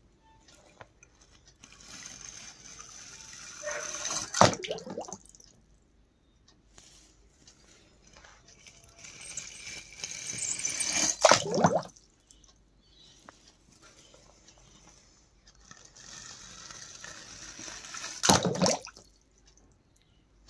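Water rushing and splashing three times, about seven seconds apart: each time a couple of seconds of pouring water builds up and ends in a loud splash.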